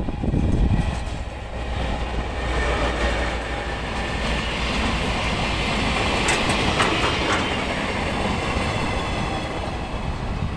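R150 diesel-electric locomotive and its freight wagons passing close by: the locomotive's engine rumble is loudest in the first second, then the wagons roll past with wheels clacking over the rail joints, with a few sharp high squeaks about six to seven seconds in.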